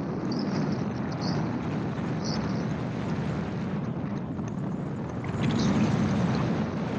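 Open-cockpit gyroplane in cruise: a steady rush of wind over the microphone, mixed with the drone of its engine and rotor. It swells louder about five and a half seconds in.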